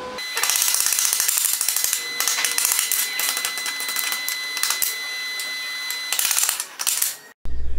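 Stick-welding arc crackling steadily as a nickel-iron electrode (ESAB OK 92.58) lays a bead on cast iron, with a steady high whine alongside. It starts a moment in and cuts off abruptly near the end.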